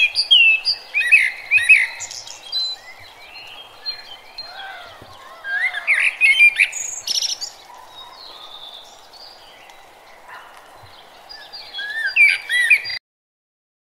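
Birds chirping and singing: many short calls sliding up and down in pitch, in clusters, over a steady background hiss. The sound cuts off abruptly near the end.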